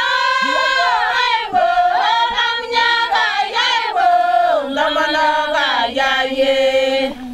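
A group of Ilchamus women singing a prayer song together, unaccompanied, in long held notes that step up and down in pitch.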